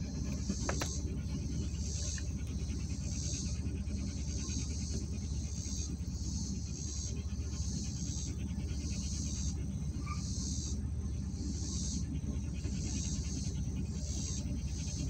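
Truck engine idling with a steady low rumble, while insects outside buzz in a pulsing chorus that swells and fades about once a second.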